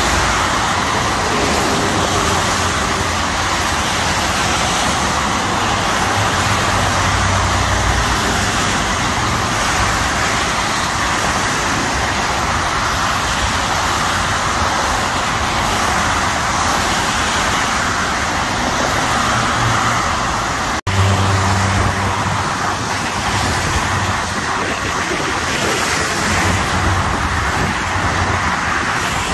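Steady freeway traffic: cars and trucks passing below on rain-wet pavement, with tyre hiss over a low engine rumble. A momentary dropout about two-thirds of the way through, after which the rumble is stronger.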